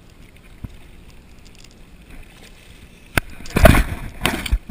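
A low hush of wind and water, then near the end a sharp knock and a few loud splashing bursts as a hooked snook thrashes at the surface beside the boat.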